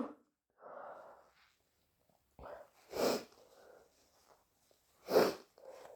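A person with a snotty nose sniffing between sneezes, with soft breaths. Two short, sharp sniffs stand out, about three seconds in and, louder, about five seconds in.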